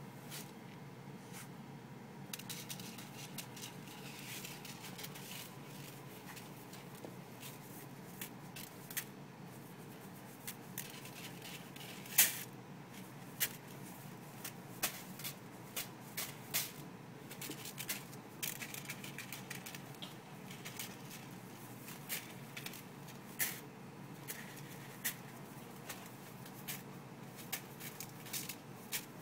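A ferret digging in a plastic tub of long-grain rice: grains rustling and scattering, with frequent sharp ticks and clicks, the loudest about twelve seconds in.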